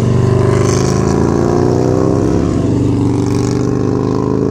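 Suzuki Boulevard C90T's V-twin engine running steadily just after starting, a deep, even exhaust note.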